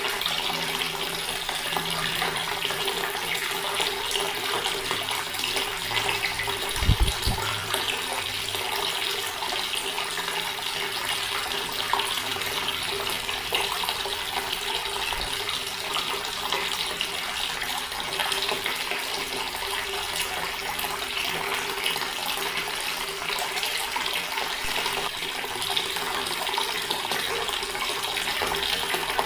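Water running steadily from a tap in a constant splashing stream, with a faint steady tone underneath. A brief low thump about seven seconds in.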